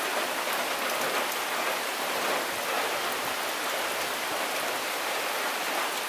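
Heavy rain falling steadily, with water dripping off the edge of a corrugated roof. A few sharp drop ticks stand out from the even hiss.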